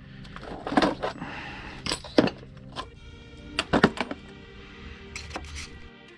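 Metal hand tools and sockets clinking and knocking together as they are rummaged through in a plastic tool crate, in a string of sharp, irregular clanks. Soft background music runs underneath.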